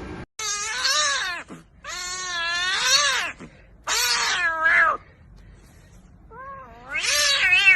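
A domestic cat yowling: four long, drawn-out, wavering meows with short pauses between them.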